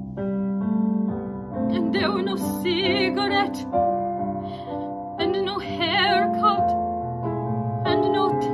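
A woman singing a musical-theatre ballad with wide vibrato over piano accompaniment, in two sung phrases with the piano carrying on alone between them.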